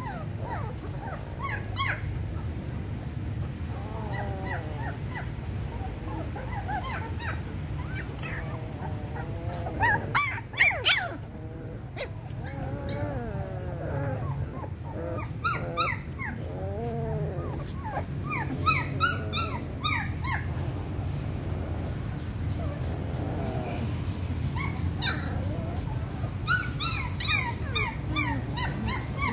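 Young puppies whimpering and squeaking in short high-pitched cries on and off, with a few loud, sharp sounds about ten seconds in, over a steady low hum.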